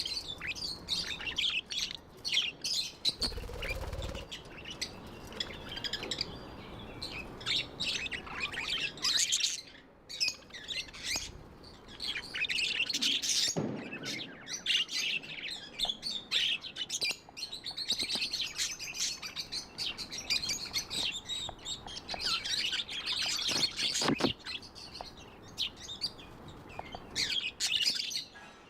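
A group of budgerigars chirping and chattering continuously in rapid, high twittering notes.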